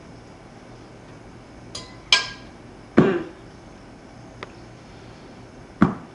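Cutlery and dishes clinking: five sharp knocks and clinks of a fork against a plate and dish, three of them loud with a short ring, the rest faint.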